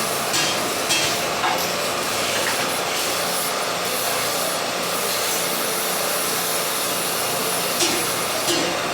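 MIG welding arc crackling and hissing steadily, with a few brief sharper pops.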